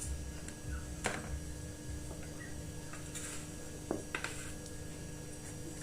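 A few light, scattered clicks and knocks of kitchen utensils and dishes against a faint steady background hum.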